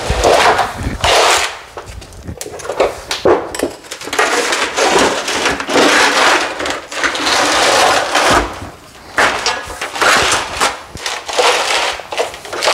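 Thin aluminum sheet flexing and scraping on a concrete floor in repeated long, noisy passes as it is bent along a knife-scored line to break off a strip.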